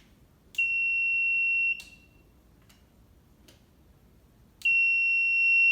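A buzzer sounds twice, each time a steady high beep lasting about a second, with a click as each beep starts and stops. This fits the buzzer being switched on and off by the wireless push button's receiver relay.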